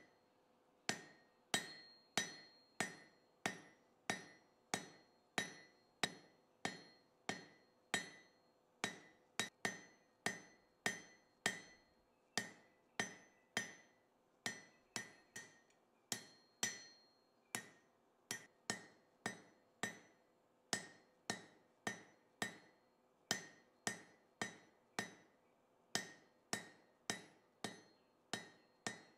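Hand hammer striking a red-hot metal bar on an anvil in a steady rhythm, about one and a half to two blows a second, each blow followed by a short metallic ring. The smith is drawing out a square taper on the bar for a hook's stem.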